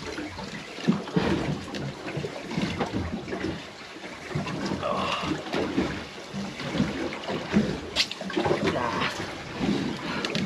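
Water sloshing and slapping irregularly against the hull of a small drifting boat, with one sharp click about eight seconds in.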